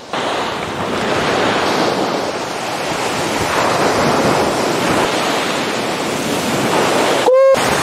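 Sea surf washing onto a sandy beach, a steady rush with wind on the microphone. A short voice-like call cuts in near the end.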